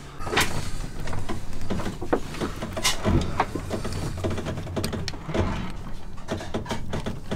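Scattered clicks and rattles of hand work on electrical wiring: insulated ring terminals being handled and a ratcheting crimping tool closing on them, over a steady low hum.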